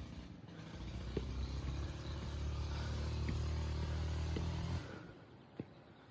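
A vehicle engine running steadily with a low hum, cutting off suddenly about five seconds in, with a few faint clicks.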